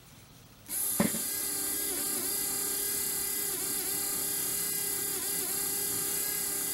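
Five-wire windshield wiper motor starting with a click under a second in, then running steadily with an electric whine that wavers in a regular cycle as the crank turns. Wired with the park lead on the wrong side, the park feature does not work, so the motor keeps spinning past the park position instead of stopping.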